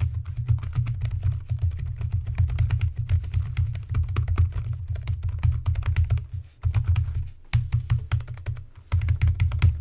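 Fast typing on a low-profile chiclet-key folding wireless keyboard: a dense run of key clicks with a few short pauses.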